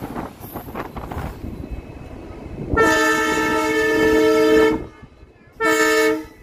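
Horn of the WDP4D diesel locomotive hauling the train, sounded twice: a long blast of about two seconds, then a short one. Before the horn, the train rumbles along the track.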